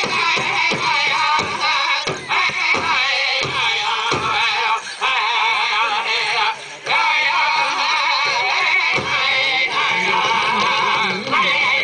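Powwow drum and singers performing a chicken dance song: high, wavering voices over a steady drum beat of about three strokes a second that drops away a few seconds in, leaving a couple of single strikes.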